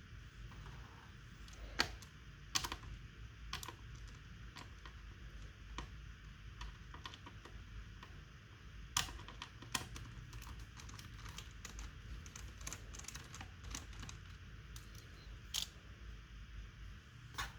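Irregular light clicks and taps of small hard parts on an ASUS ExpertBook laptop being handled, a few sharper clicks standing out, over a faint steady low hum.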